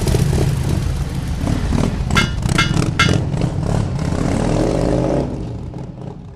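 Motorcycle engine running with a deep, rapid firing rumble, three sharp hits about two seconds in, a rising rev near the end, then fading down.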